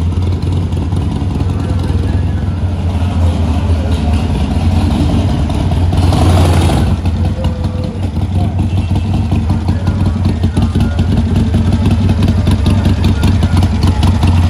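Harley-Davidson Iron 883's air-cooled V-twin engine running with a fast, even low pulse, with a brief louder rush about six seconds in.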